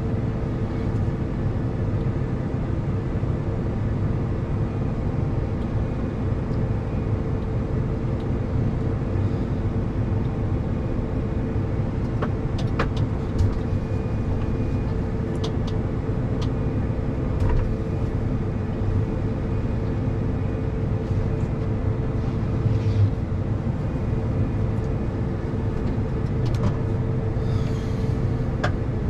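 Combine harvester running steadily while its unloading auger empties the grain bin, with a steady whine over the low engine hum and a few light clicks.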